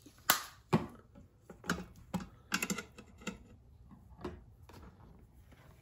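Metal kitchen tongs clicking and tapping against a stainless steel pressure-cooker pot while turning raw chicken breasts: a string of sharp, irregular clicks, the loudest near the start and a quick cluster in the middle.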